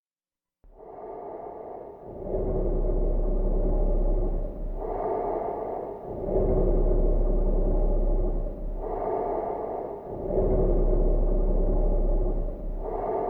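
Ghost breathing sound effect: slow, deep, processed breaths drawn in and let out about every four seconds, the longer, louder breaths carrying a low rumble. It begins about half a second in.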